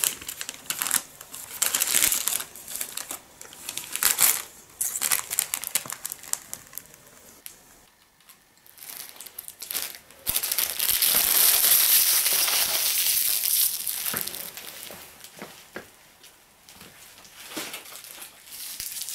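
Plastic snack-cake wrappers being crumpled and handled, crinkling in irregular bursts, with a longer continuous stretch of crinkling about ten seconds in, then a few quieter rustles.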